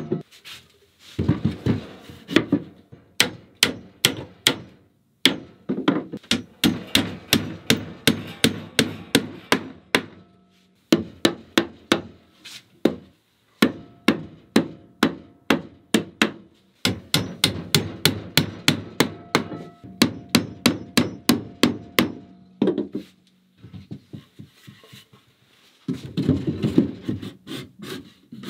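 Hammer blows on wooden shelf boards, coming in quick runs of about three a second with short pauses between runs.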